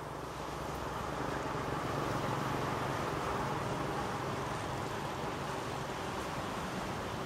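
Small waves breaking and washing up a sandy beach, a steady rushing surf noise, with a low hum underneath.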